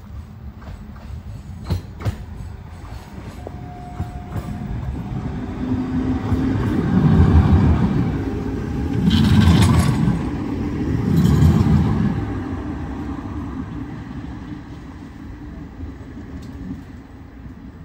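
Tram running past on its rails: the rumble grows as it approaches, comes in three louder swells of wheel noise and rattle as it goes by, then fades as it pulls away.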